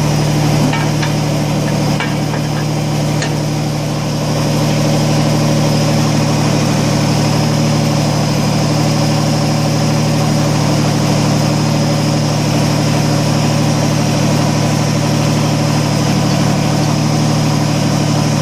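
Kubota BX25D compact tractor's three-cylinder diesel engine running steadily. A few light clicks come in the first few seconds, and the engine grows slightly louder about four seconds in.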